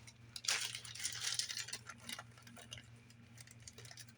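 Rustling and light clicking of hands handling objects, loudest about half a second in and again a little after a second, over a faint steady electrical hum.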